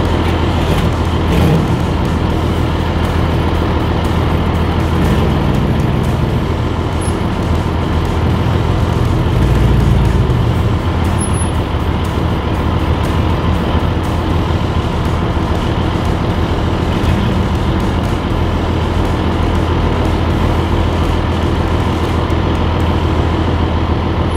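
Diesel engine of a 1984 Peterbilt 362 cabover truck running steadily, with a louder low rumble about ten seconds in.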